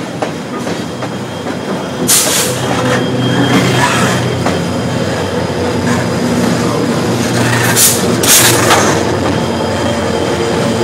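A freight train passing close on a railway bridge: the wagons' wheels rumble over the rails, then a diesel locomotive goes by with its engine droning steadily. Two short shrill bursts cut through, about two seconds in and again near eight seconds.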